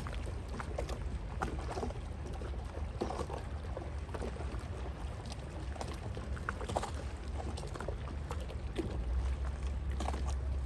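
Small waves lapping and splashing against the shore in a string of short, irregular splashes, over a steady low rumble that swells slightly near the end.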